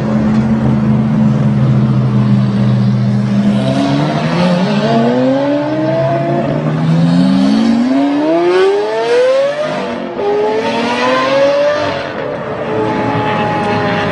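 Lamborghini V12 supercar engines: a steady engine note for the first few seconds, then several overlapping rising sweeps in pitch, each cut off and starting again, as the cars accelerate hard through the gears.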